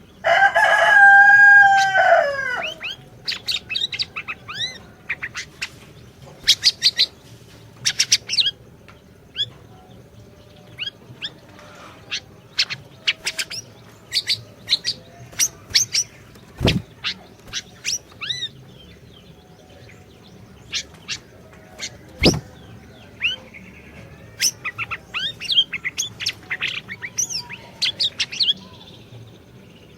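A rooster crows once at the start, ending on a falling note. After that, a siri-siri songbird sings a long run of short, sharp, high chirps and quick trills in irregular bursts, with two sharp clicks about two thirds of the way through.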